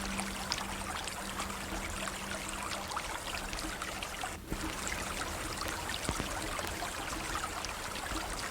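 River water flowing over stones: a steady rush with many small trickles and splashes.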